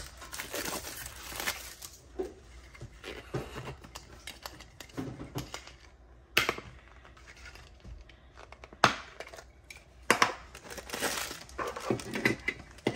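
Ring-pull metal lid being peeled off a sealed Funko Soda can: the thin metal creaks and scrapes, with a run of crackling and a few sharp metallic clicks, the loudest about nine seconds in.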